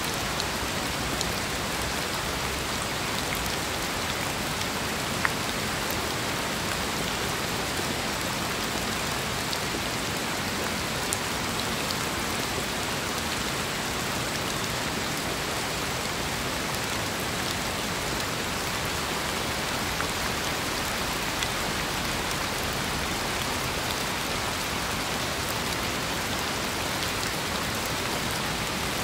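Steady rain falling, an even hiss with a few sharper single drops ticking out about 5 and 11 seconds in.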